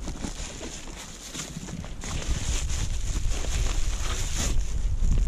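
Clear plastic bag crinkling as hands pull it off the underwater camera, in many short rustles, over a low wind rumble on the microphone that grows toward the end.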